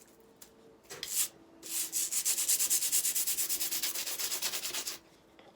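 Fast, even scraping or rasping strokes, about a dozen a second, lasting some three seconds after a brief scrape, as something stubborn is worked open.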